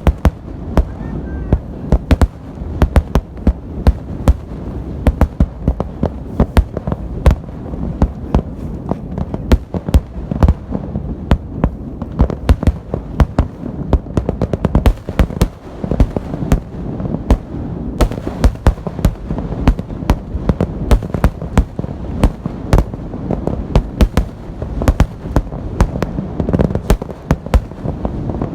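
Fireworks display: many shells bursting in quick, irregular succession, sharp bangs over a continuous low rumble of explosions and echoes, without letup.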